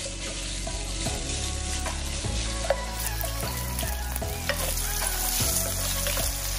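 Chopped bacon sizzling in a hot nonstick skillet as its fat renders, with small scattered pops, while a wooden spatula stirs the pieces around the pan.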